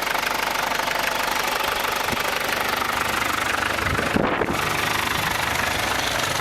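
Isuzu 2.8 four-cylinder turbo diesel idling with a steady diesel clatter. A brief low rush breaks in about four seconds in.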